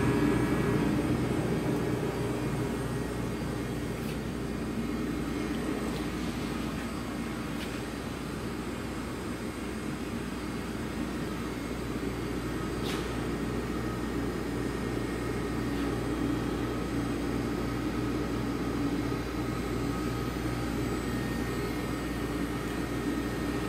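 Steady mechanical hum of a powered-up CNC tool and cutter grinder standing idle, with a few faint ticks.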